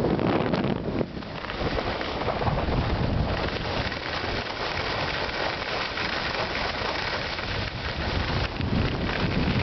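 Wind buffeting the microphone during a fast ski run, over a steady granular hiss of skis sliding and scraping on firm groomed snow. The wind rumble eases about a second in and picks up again near the end.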